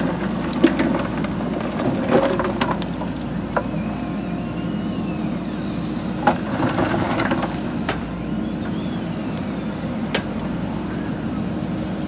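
JCB 3DX backhoe loader's diesel engine running steadily under hydraulic load as the backhoe arm swings and digs, with scattered knocks and clatters of the bucket against stones and soil.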